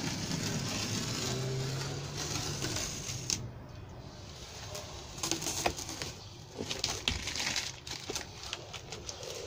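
Masking tape and then the protective plastic film being peeled off a stainless steel door kick plate: crinkling and crackling, with a cluster of sharp snaps and ticks in the second half as the film tears away. A low steady hum runs under the first few seconds.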